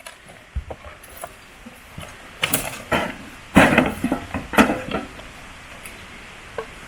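Cooking pots and utensils clattering, with a handful of sharp knocks and clinks between about two and a half and five seconds in.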